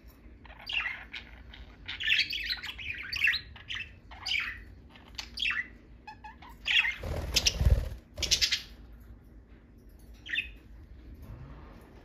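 Budgerigars chirping and squawking in short, quick calls, several birds at once. About seven seconds in, a louder burst of close wing flapping.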